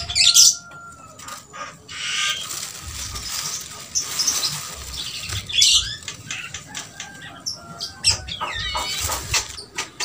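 Javan mynas giving harsh, scratchy calls and wing flutters in several short bursts, with a run of quick rising-and-falling whistled notes near the end.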